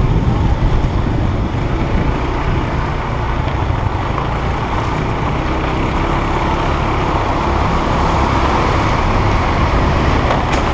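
Motorbike being ridden along a street: its engine running under a steady, dense rumble of wind on the helmet-mounted microphone.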